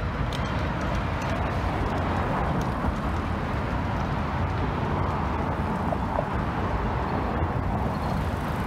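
Steady noise of passing road traffic.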